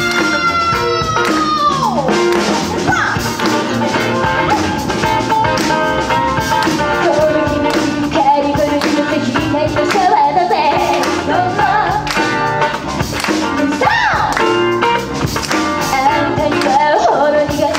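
Live pop band performance: women singing over drum kit, guitars and keyboard, with a steady drum beat. A long held note slides steeply down about two seconds in.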